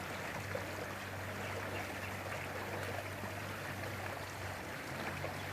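Steady rushing of a flowing creek, running high, with a low steady hum underneath.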